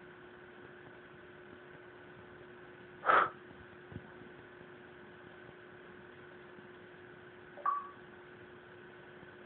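Steady electrical hum and hiss with two fixed tones. It is broken about three seconds in by a brief, loud, sharp sound, and near the end by a short sound that ends in a brief held note.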